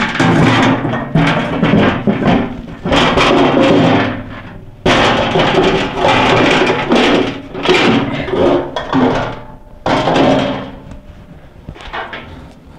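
Background music, loud and continuous, dropping away in the last couple of seconds.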